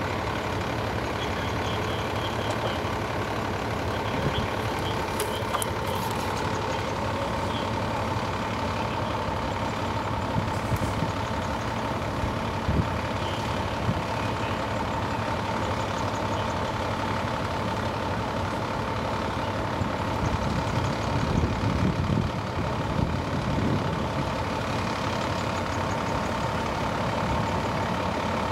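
Large diesel truck engine idling steadily, with a steady high whine over the low running noise. The low rumble swells briefly about three quarters of the way through.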